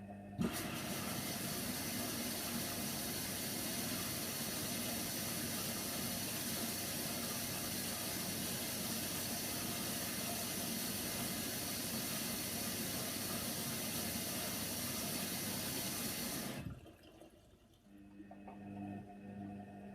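Hoover Nextra washer-dryer taking in water at the start of a wash: a short knock about half a second in, then a steady rush of water filling the machine that cuts off sharply about sixteen seconds later. A low machine hum remains afterwards.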